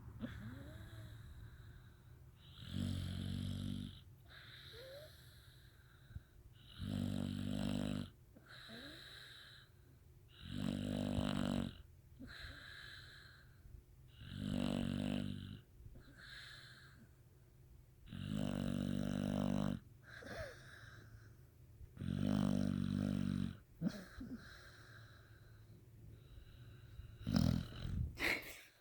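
A dog snoring in its sleep: six long, even snores roughly every four seconds, each about a second and a half long, with a few short, choppy sounds near the end.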